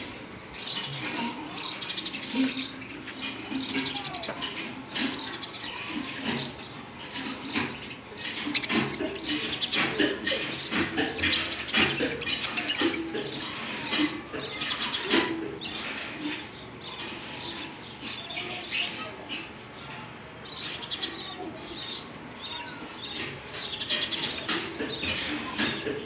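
A flock of budgerigars chattering and chirping without pause, many short calls overlapping.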